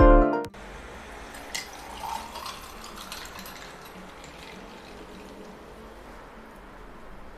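Basil sherbet poured from a glass jug into a glass, a steady pour of liquid. A short music passage cuts off about half a second in.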